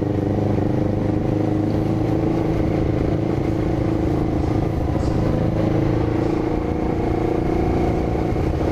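1998 Honda CB500's parallel-twin engine running at a steady pace while riding, its pitch holding nearly even.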